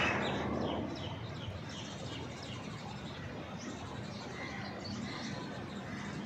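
Faint, scattered chirping of birds in the background, with a short rustling noise in the first second.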